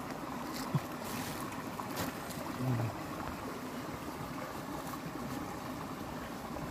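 Steady background noise, a mix of hiss and rumble, with a soft knock about a second in and a short low thud near three seconds.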